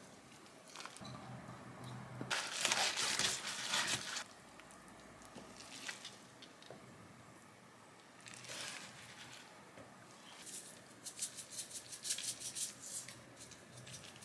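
Gloved hands squishing and rustling through green onion and king oyster mushroom kimchi coated in red pepper seasoning, scooping it into containers in a few separate bursts. Near the end comes a quick run of short rattles as sesame seeds are shaken from a shaker jar.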